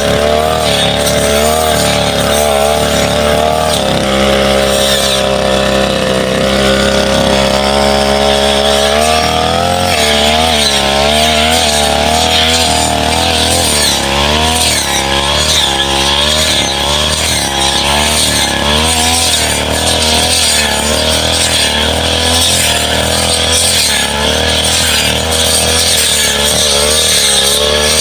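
Petrol brush cutter's small two-stroke engine running at high revs while cutting saplings and brush. Its pitch wavers up and down as the load changes, holding steadier for a few seconds early on before wavering quickly again.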